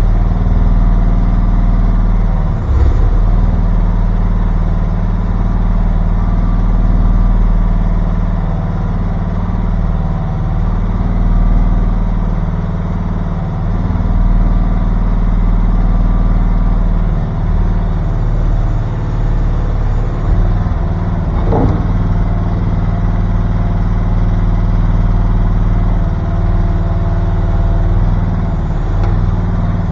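Mini excavator's engine running steadily, its note swelling and easing a little as it works, with a brief knock about three seconds in and another short sound about two-thirds of the way through.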